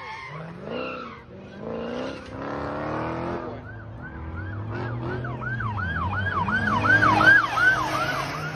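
Police siren on rapid yelp, sweeping up and down about three times a second, starting about three and a half seconds in and growing louder to a peak near the end as the police SUV passes. Before it, a car engine revs up.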